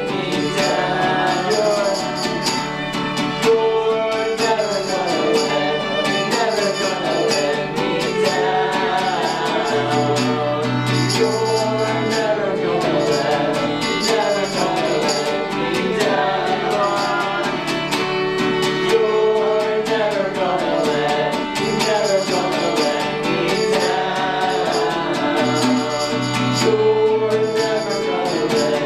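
Live gospel worship song: voices singing over guitar, with high percussion keeping a steady beat.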